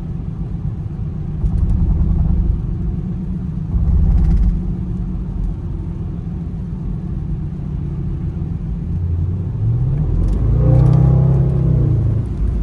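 Range Rover Sport SVR's supercharged V8 heard from inside the cabin while driving, a steady low rumble. About nine seconds in the engine note rises as the car accelerates, then holds louder for a couple of seconds.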